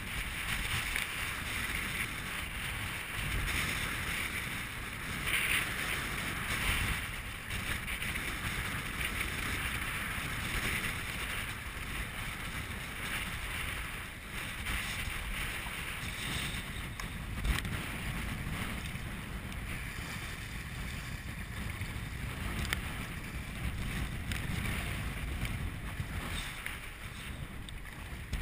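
Strong wind, about 25 knots, buffeting the kayak camera's microphone, over the steady hiss and slosh of choppy water around a sea kayak's hull, with a brief knock now and then.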